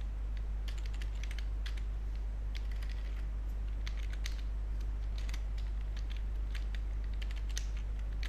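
Computer keyboard typing: keys clicking in short quick runs with brief pauses between them, over a steady low hum.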